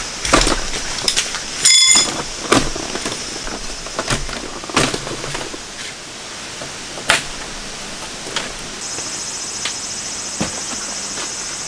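Scattered knocks and clicks of a folding metal camp table and storage box being set up and bottles set down on it, with one short ringing clink about two seconds in. A steady high buzz comes in near the end.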